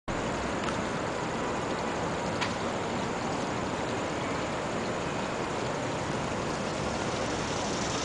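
Small dome-shaped fountain splashing steadily into a shallow stone basin.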